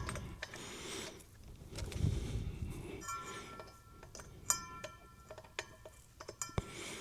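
Small metallic clicks and clinks of spade connectors on speaker cables being handled and fitted to binding posts, with light handling rustle. The clinks cluster a few seconds in.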